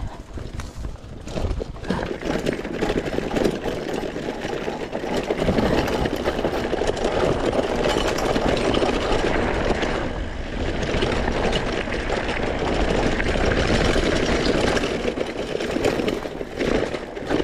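Mountain bike ride noise on a trail: continuous rattling and rumbling from the bike rolling over rough ground.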